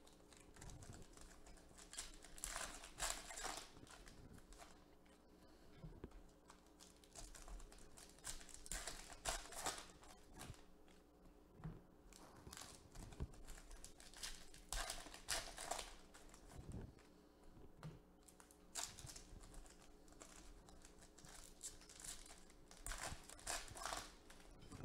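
Foil trading-card packs crinkling and tearing as they are ripped open by hand, in short bursts every few seconds.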